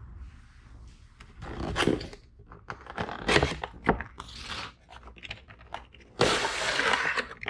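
Cardboard headlight packaging being opened and handled: rustling, tearing and scraping in irregular bursts, with the longest and loudest tear about six seconds in.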